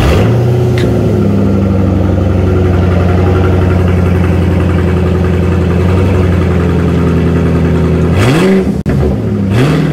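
Car engine with its mufflers removed, running loud just after a cold start at a steady high idle that settles slightly about a second in. Near the end it is revved twice, each rev rising and falling in pitch.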